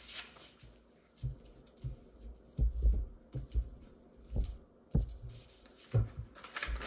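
Irregular dull thumps, about a dozen, from paper being handled and pressed down on a tabletop, with faint paper rustle.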